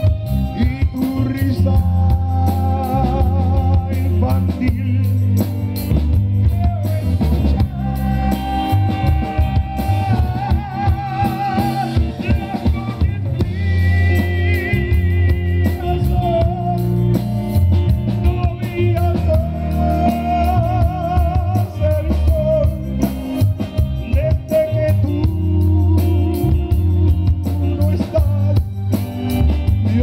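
Live band playing a slow romantic Latin song: drum kit, electric bass, electric guitar and keyboards, with a wavering lead melody over a steady beat.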